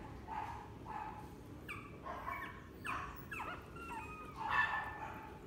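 A litter of very young Shih Tzu puppies, eyes just opened, whimpering and squeaking. It is a string of short high-pitched cries, many falling in pitch, coming thickest in the middle with the loudest cry a little after four seconds in.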